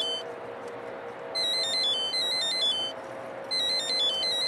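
An electronic ringtone-style melody of quick, high stepped beeps, playing in short phrases that repeat about every two seconds, over a steady hum.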